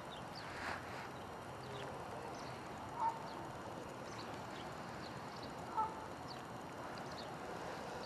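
Birds chirping over a steady background hiss, with two short, louder calls about three and six seconds in.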